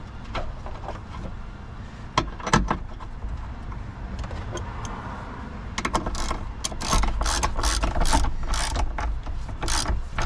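Hand ratchet clicking in quick back-and-forth strokes as it tightens the battery hold-down clamp bolt. It starts about six seconds in, after a few scattered metal clicks as the socket is fitted.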